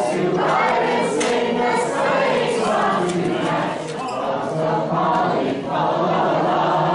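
A roomful of people, men, women and children, singing a Christmas carol together in unison from song sheets.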